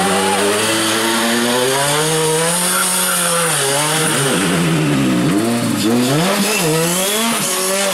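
Rally car engine at full throttle. It holds a steady pitch at first, then rises and falls quickly several times, as with gear changes and throttle lifts through a stage.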